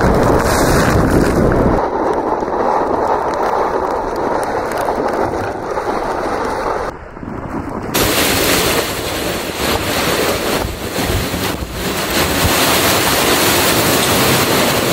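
Seawater rushing and washing across a racing yacht's deck, with wind buffeting the microphone. About halfway through, the rush gives way to a brighter, hissier spray.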